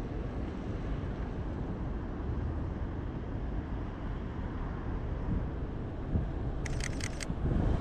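Steady low outdoor rumble of distant traffic. Near the end comes a quick run of four sharp clicks: a Sony a7's shutter firing a short burst.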